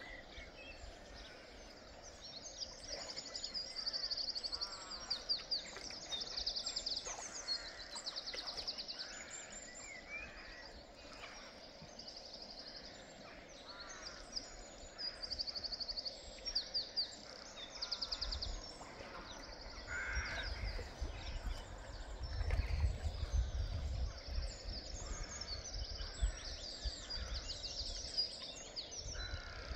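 Small birds singing in high, rapid trills repeated again and again, with a few lower calls, over the faint steady wash of a shallow river. A low rumble comes in during the second half.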